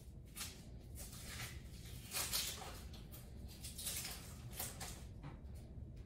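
Soft, irregular rustling and handling noises, loudest about two seconds in, over a low room hum.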